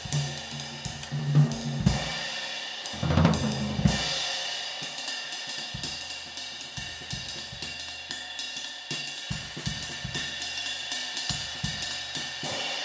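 Round Sound Custom Thin High 20-inch ride cymbal (1740 g) played with a drumstick in a steady stream of strokes, its wash building and sustaining underneath the pings. A few louder accents ring out between about one and four seconds in.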